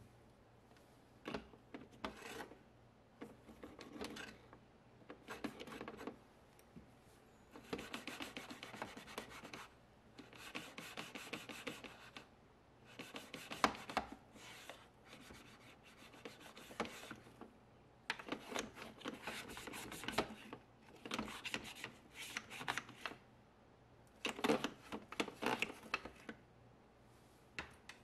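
Toothbrush bristles scrubbing the plastic door-handle recess of a dishwasher, in about ten short bouts of rapid back-and-forth strokes with brief pauses between.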